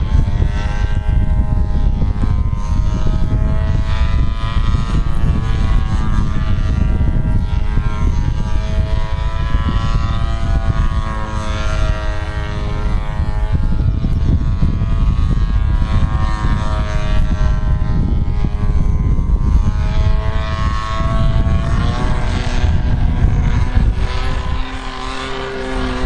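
Radio-controlled Seagull Harrier 3D model airplane in flight, its SC 108 engine and 14×8 propeller running continuously, the pitch rising and falling as it manoeuvres. Near the end the engine note drops lower and quieter.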